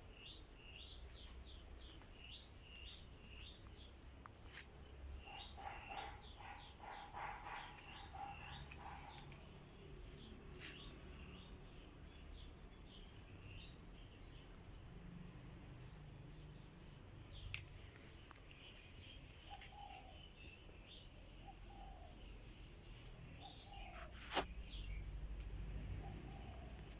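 Small birds chirping in short falling notes over a steady high insect drone, with a rapid run of calls about five seconds in and a single sharp click near the end.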